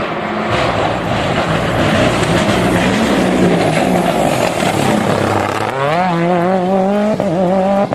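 Car engine sound effect: a loud rushing noise for the first several seconds, then the engine revving up about six seconds in and holding a wavering note.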